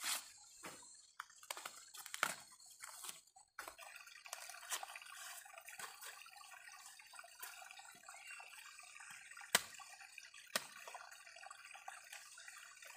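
A machete cutting and stripping fresh ears of corn: scattered sharp knocks and clicks, the loudest two about a second apart near the end, over a faint steady hiss.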